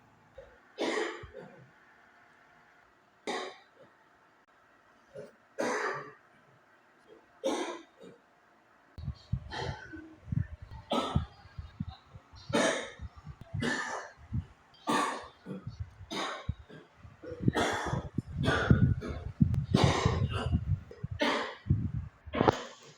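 A person coughing repeatedly: single coughs a few seconds apart at first, then from about nine seconds in a long fit of closely spaced, louder coughs.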